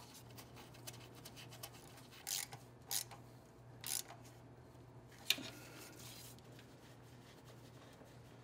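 Faint scrapes and a sharp click of hand tools and metal parts as a starter motor is bolted back onto the engine, over a low steady hum.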